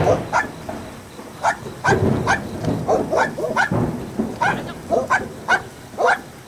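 A dog barking repeatedly, about a dozen short, sharp barks, in a tense standoff with an unfamiliar dog.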